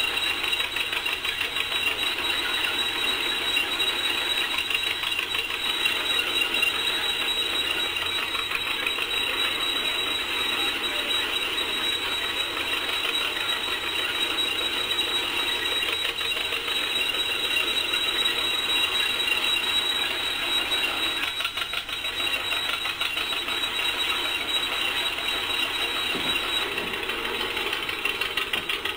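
1947 John Deere D's two-cylinder engine, converted to run on LP gas, popping steadily under load while belted to a threshing machine, mixed with the thresher's continuous clatter.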